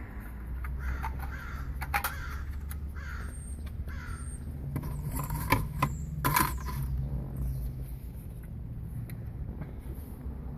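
Plastic parts of a Honda Civic instrument cluster creaking, scraping and snapping as they are worked apart, with several harsh scrapes in the first few seconds and sharp clicks around the middle, over a steady low hum.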